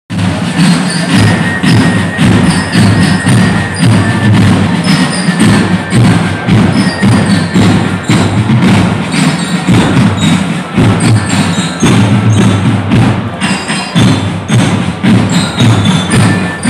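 Military drum and fife corps playing a march: rapid, dense drum strikes over a low, booming drum beat, with high fife notes coming and going.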